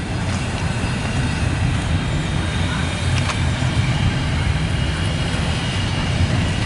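Double-stack intermodal freight train's loaded well cars rolling past close by: a steady rumble of steel wheels on rail, with a brief click about three seconds in.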